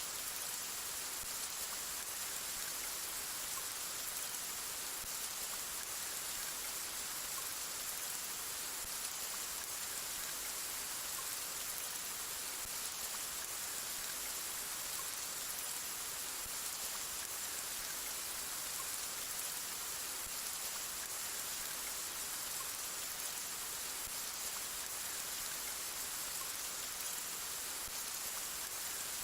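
Steady rain falling, an even hiss with faint scattered drop ticks, unchanging throughout.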